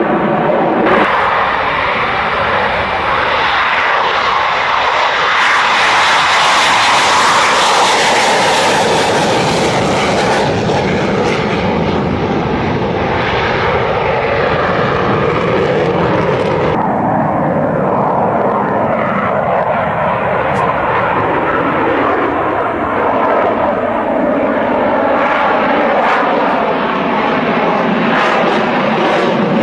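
Dassault delta-wing fighter jet's engines running at display power in a continuous roar. The roar grows louder and harsher about 5 to 11 seconds in, and its high hiss drops away suddenly about 17 seconds in.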